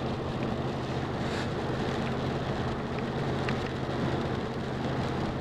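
Steady rain with a low, steady vehicle hum beneath it.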